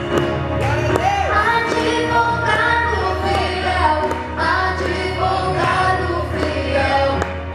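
Female voices singing a gospel song over instrumental accompaniment, several vocal lines at once.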